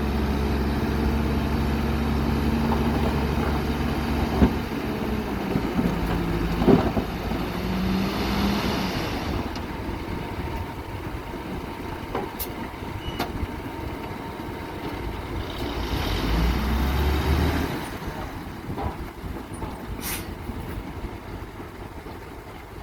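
D20 bulldozer's diesel engine running steadily. Its note drops about nine seconds in and rises briefly again near the seventeen-second mark. A few sharp clicks are heard in the second half.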